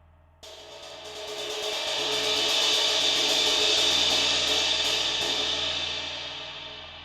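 Diril Primitive 18-inch crash cymbal, a dry, dark Turkish cymbal, played in a quick roll that builds in volume for about three seconds. The strokes stop about five seconds in, and the cymbal is left to ring and fade.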